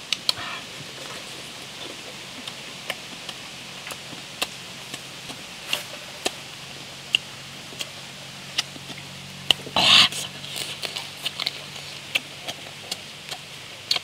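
Eating cooked crab by hand: shells and claws cracked and picked apart, and the meat chewed and sucked, giving a scatter of sharp irregular clicks and crunches, with one louder crunch about ten seconds in.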